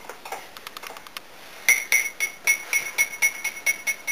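Spoon tapping rapidly against a cup, a quick run of ringing clinks about five a second that starts a little under two seconds in, after a few faint clicks, as cocoa powder is spooned into the cup.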